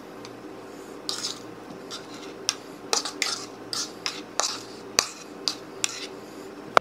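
A metal spoon clinking and scraping against a plastic mixing bowl as chopped strawberries and rhubarb are spooned and tipped out onto pastry dough: a dozen or so irregular clicks and short scrapes, with a sharp click about five seconds in and another at the very end.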